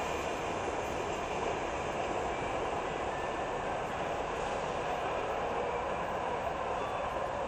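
Train running along the tracks: a steady, even noise with no distinct clacks or squeals.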